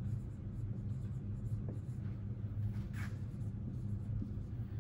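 Dry-erase marker writing on a whiteboard in short strokes, over a steady low hum.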